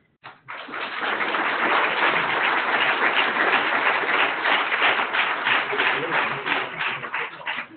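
Audience applauding. The clapping swells in about half a second in, holds steady, and dies away near the end.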